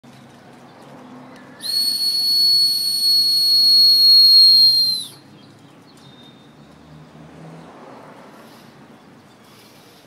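Dog whistle blown once: a single steady, high-pitched tone of about three seconds that dips slightly as it ends. It is the conditioning signal for the birds that food is set out.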